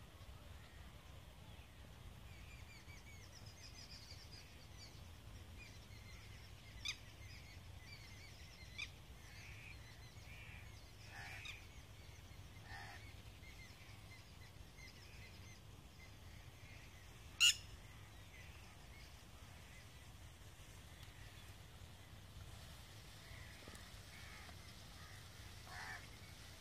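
Birds chirping and calling faintly and on and off, with a few short, sharp sounds standing out, the loudest about seventeen seconds in.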